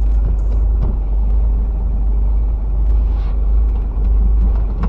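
Steady low rumble of a semi-truck's diesel engine and road noise, heard from inside the cab.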